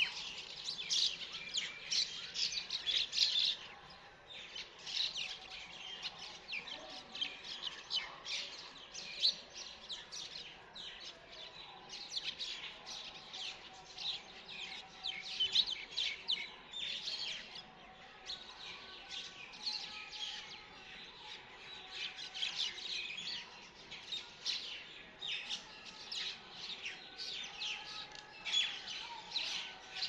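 A chorus of many small birds chirping and twittering without pause, dense overlapping short high calls with a few longer, lower held notes beneath.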